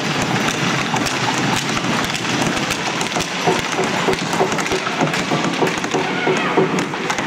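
Ice rink din: a hubbub of many overlapping voices with frequent sharp clacks and knocks, as of sticks and skates on the ice.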